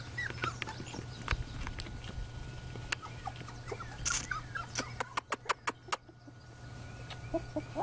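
Young beagle puppies giving small high squeaks and whimpers, with a quick run of sharp clicks about five seconds in.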